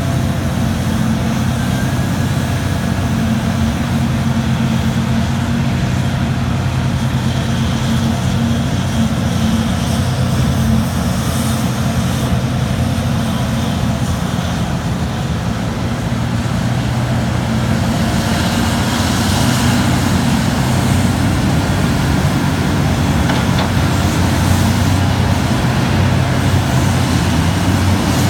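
Terex RH170 hydraulic front shovel working under load: a steady heavy diesel drone, its pitch holding, as it digs and swings. Late on, its bucket dumps rock into a Hitachi EH3500 haul truck's bed.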